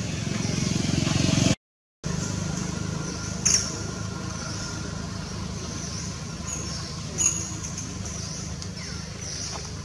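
A steady low engine rumble, cut off briefly about one and a half seconds in, with two short high chirps, one about a third of the way in and one about three-quarters through.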